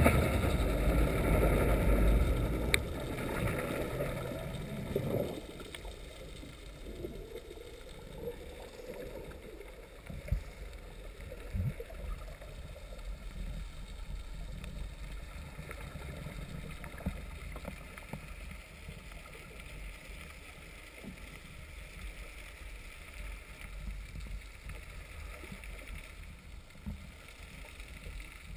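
Muffled water noise heard by a camera held just under the surface. A loud low churning for about the first five seconds settles into a quieter steady wash, with a few soft knocks.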